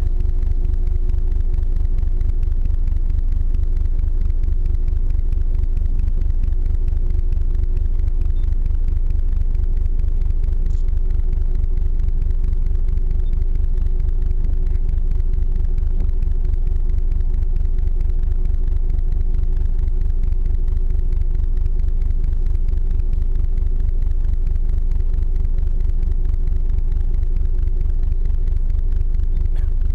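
Icebreaker ship's engine running steadily: a constant low rumble with one steady hum above it.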